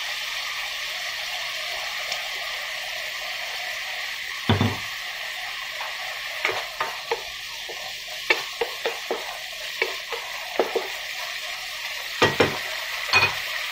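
Ground pork sizzling in a nonstick wok with soy and oyster sauce freshly added, a steady frying hiss. A single knock about four seconds in, then a spatula stirring and scraping the pan in a run of short clicks and knocks.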